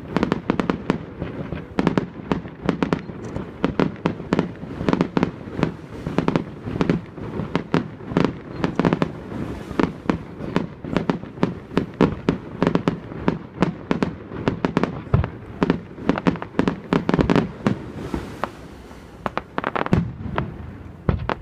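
Fireworks display: a rapid, continuous barrage of bursting shells, several bangs a second, thinning out to fewer, scattered bangs near the end.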